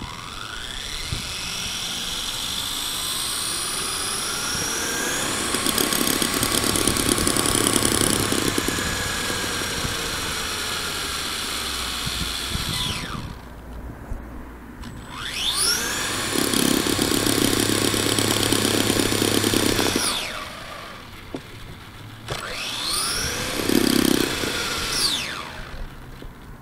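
HPI Mini Recon's brushless motor on a 3S LiPo whining as the hand-held truck's wheels spin free in the air. There are three throttle runs, each whine rising in pitch as it spools up and falling away at the end: a long one of about thirteen seconds, then two shorter ones.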